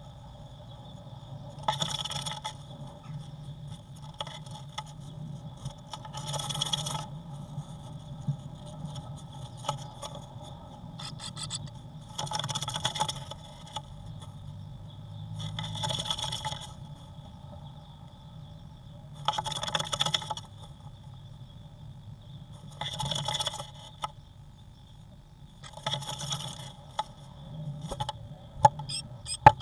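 Great tit scraping and scrabbling on the bare wooden floor of a nest box, in short bursts about every three seconds: the wriggling of a bird shaping a nest cup. A few sharp taps near the end, over a steady faint hum.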